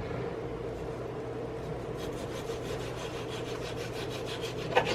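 Kitchen knife sawing back and forth through a partly thawed pork roast, faint quick strokes starting about two seconds in and a louder stroke near the end, over a steady low hum.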